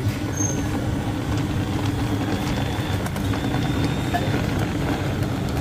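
Steady low mechanical hum of street traffic and shop machinery.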